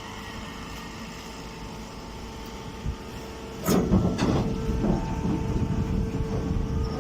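Grass baler machine running: a steady mechanical hum, then about halfway in a couple of sharp knocks and a loud, continuous rattling clatter as the machine works.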